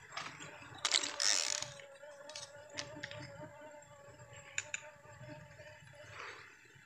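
Fishing reel being cranked to wind in line: a steady, slightly wavering whirr from about a second in that stops near the end, with a few light clicks.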